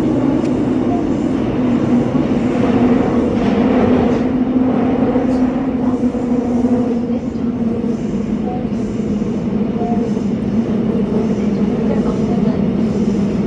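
Subway train running, heard from inside the carriage: a steady rumble with a steady hum, a little louder about two to four seconds in.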